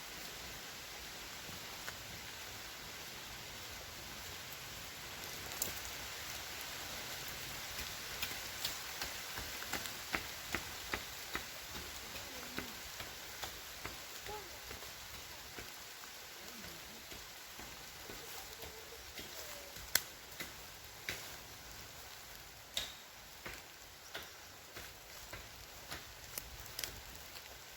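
Steady hiss of rain falling, with irregular drops tapping sharply on a hard surface, a few of them louder.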